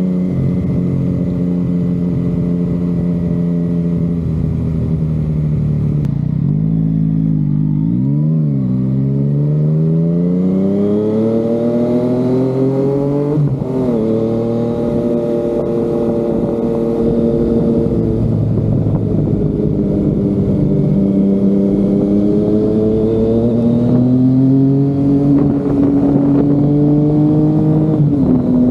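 Yamaha MT-09's inline three-cylinder engine through an Akrapovic exhaust, heard from the rider's seat while riding. It holds steady, drops off, and gives a quick blip about eight seconds in. It then pulls up through the revs to a gear change about fourteen seconds in, cruises, climbs again and shifts near the end.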